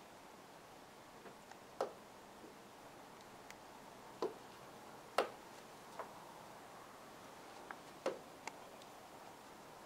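A series of sharp, short clicks at uneven intervals, the loudest a second or more apart, over a faint steady hiss.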